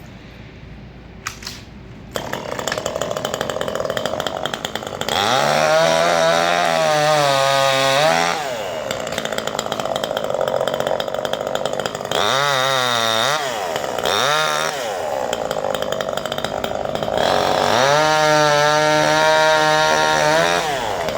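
Chainsaw starts running about two seconds in and is revved hard several times, its pitch sagging and recovering as it cuts through pine branches.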